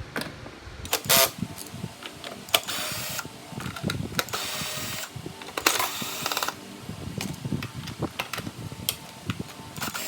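Ratchet wrench with an 8 mm socket clicking in several short runs of rapid clicks as the bolts holding the lawnmower's recoil starter housing are loosened. Metal tool clinks and knocks come between the runs, with one louder knock about a second in.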